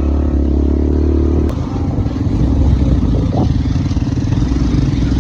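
A vehicle engine running steadily, its note dropping to a lower, rougher pitch after a click about a second and a half in.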